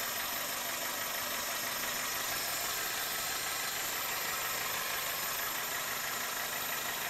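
2002 Toyota Corolla four-cylinder engine idling steadily, an even noise with faint steady high tones over it. This is the strange idle noise the owner later traced to a weak belt tensioner pulley letting the serpentine belt run too loose.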